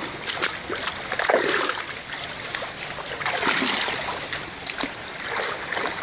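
Water splashing and sloshing as people wade through a shallow rocky stream, over the steady rush of running water.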